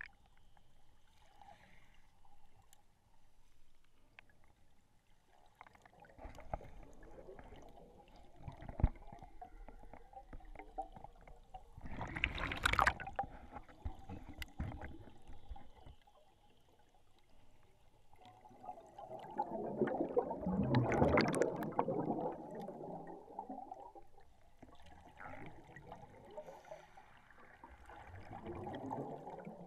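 Muffled underwater bubbling heard through an underwater camera: swells of air bubbles from a scuba diver every several seconds, the biggest about two-thirds of the way in, over a faint steady hum.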